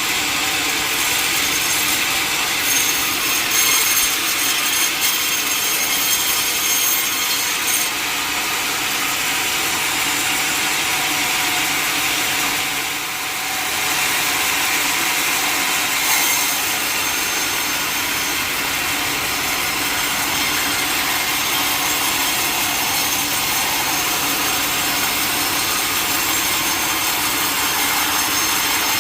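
Sawmill saw cutting through a large mahogany log, a steady, continuous grinding rasp of blade through wood. It eases off briefly about halfway through, then carries on.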